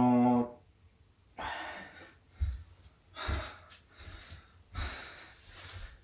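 A man breathing hard, with several heavy, noisy breaths a second or so apart: he is out of breath from the exertion of throwing a balloon at a wall. Two soft low thumps come near the middle.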